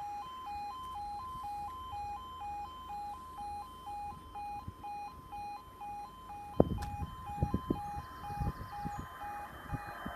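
Level crossing warning alarm sounding, two tones alternating high-low about twice a second. Several low thumps break in during the second half.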